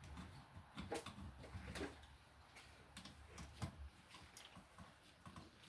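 Faint, scattered light clicks and knocks of handling noise, with a low background hum.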